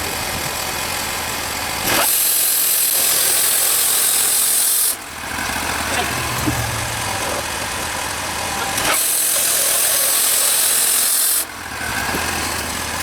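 Wood-Mizer band sawmill's engine running steadily, broken twice by a few seconds of loud, high hiss.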